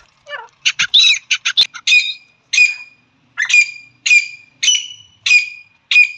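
Hen francolin (teetar) calling: a quick run of short notes about a second in, then a string of about seven loud calls, evenly spaced, each ending in a short held note.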